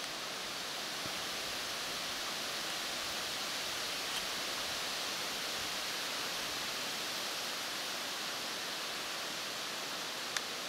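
Steady rustling hiss of wind through birch foliage, with two faint clicks, about four seconds in and near the end.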